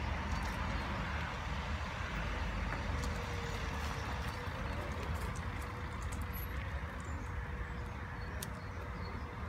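Steady low rumble of distant road traffic, with a few faint clicks.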